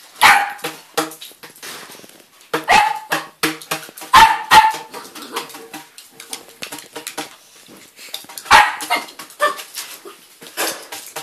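Puppy barking in short, sharp bursts: a bark just after the start, a cluster of barks a few seconds in, and another cluster near the end. It is play-barking at a pole poked toward it.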